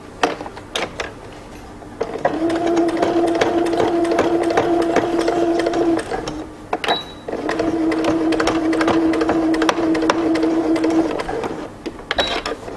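Electronic domestic sewing machine stitching a drawstring tie down over the pants' seam in two steady runs of about four seconds each, with a short stop and a beep between them. Clicks come before the first run, and a button beep and clicks come near the end as it stops.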